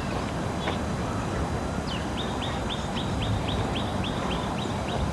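A bird calling a rapid series of about a dozen short, high, identical notes, roughly four a second, starting about two seconds in, over a steady low background rumble.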